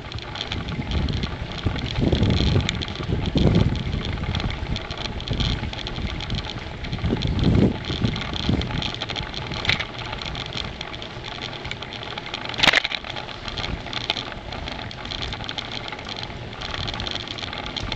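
Riding noise from a bicycle rolling along a tarmac path, heard through a camera carried on the bike: a steady rush with gusts of low wind rumble on the microphone. There is a sharp click about two-thirds of the way through.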